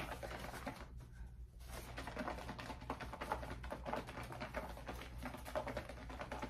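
Faint, irregular clicking and rustling of gloved hands working hair colour into dreadlocks.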